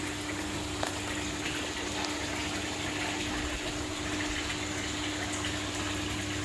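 Steady rush of running water from a fish pond's circulation, with a constant low pump hum under it.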